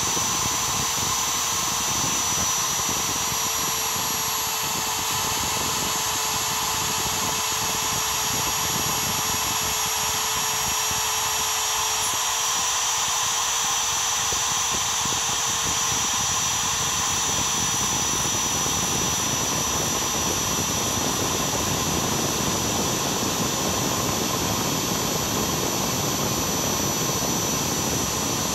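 CNC router spindle running at high speed while a small two-flute up-cut end mill takes a shallow cut in a thin steel strip: a steady high whine over a grainy rasp from the cut. The rasp grows rougher and fuller past the middle.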